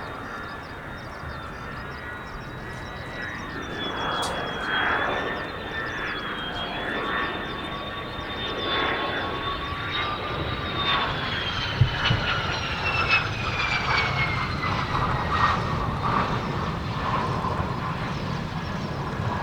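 Jet engine of a Mitsubishi F-2 fighter, a single General Electric F110 turbofan, with a high whine over a noisy rush that grows louder. The whine slides down in pitch about halfway through.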